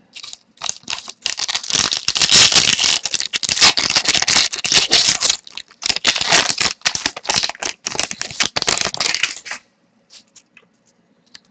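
Wrapper of a hockey trading card pack crinkling and tearing as it is opened and the cards are pulled out, a dense rustle that stops with about two seconds to go, leaving a few faint ticks.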